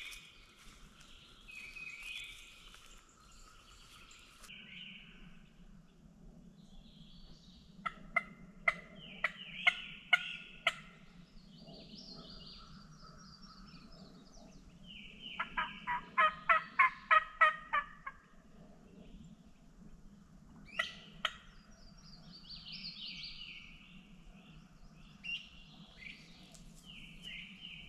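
Turkey call sounding two runs of loud, sharp yelps, about eight spaced notes and then a quicker run of about ten, as a hunter calls for gobblers and gets no answer. Songbirds chirp throughout, over a steady low hum.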